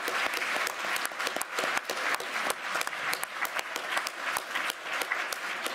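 Audience applauding steadily, a dense stream of many hands clapping at once.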